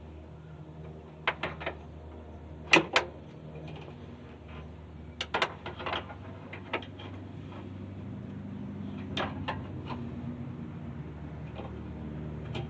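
A series of sharp knocks and clunks, single and in quick pairs or triplets, the loudest a double knock about three seconds in, over a steady low hum.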